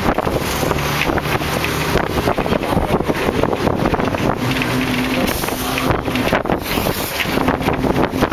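Moving road vehicle: engine drone under loud wind buffeting the microphone and road noise.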